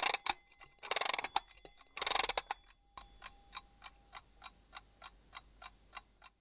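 Two short bursts of rapid ratcheting clicks, then a steady mechanical tick of a timepiece, about three ticks a second, until near the end.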